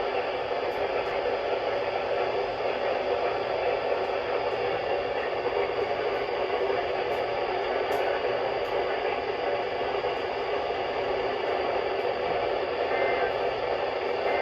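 Steady radio static: an even hiss from a weather radio receiver with no programme audio coming through.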